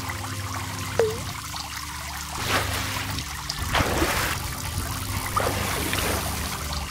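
Water sound effects: trickling and splashing over a steady low hum, with a sharp click about a second in and louder watery surges around two and a half and four seconds in.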